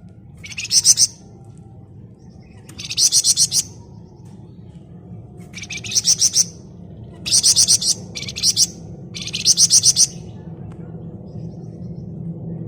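Wergan Jawa (Javan fulvetta) giving its dense rattling 'ngebren' call: about six short, high, fast-pulsed phrases, one every one to three seconds. A faint low hum runs underneath.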